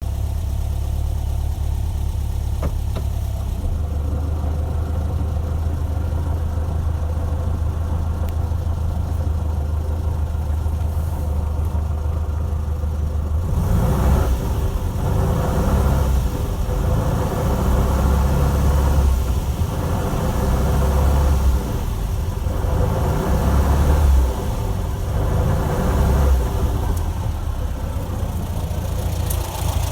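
1968 VW Beetle with the semi-automatic Autostick transaxle running: a steady low hum at first, then from about halfway louder and rougher, swelling and easing in repeated surges. The noise is what the owner takes for a noisy transaxle.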